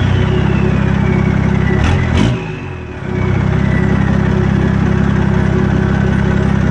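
Toyota Land Cruiser 80 series engine running under steady load with a turbocharger whistle, a thin high tone that slowly falls in pitch. About two seconds in the engine eases off briefly, with a couple of short sweeps, then picks back up.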